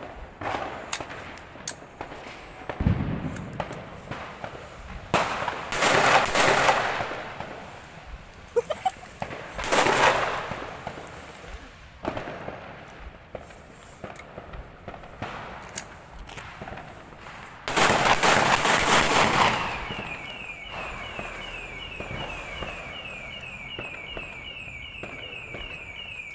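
New Year fireworks and firecrackers going off: scattered pops throughout and three long, loud crackling barrages. About twenty seconds in, a rapidly repeating chirping tone starts and keeps going.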